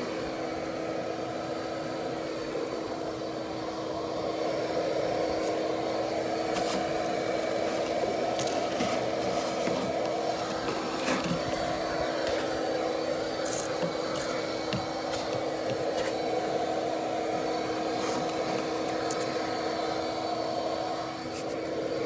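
Bee vacuum running with a steady hum, its hose sucking up the honey bees left in the box.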